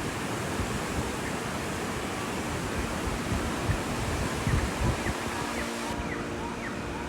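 Steady rush of a mountain waterfall, with wind buffeting the microphone. Background music fades in about five seconds in.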